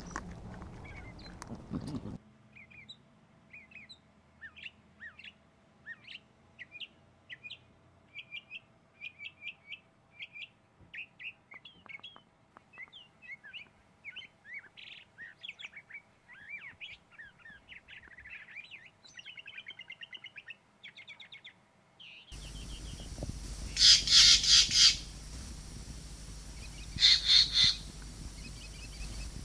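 Small birds chirping in a long run of short, high notes. About 22 seconds in, the background grows louder and green jays call in three loud bursts of quickly repeated harsh notes.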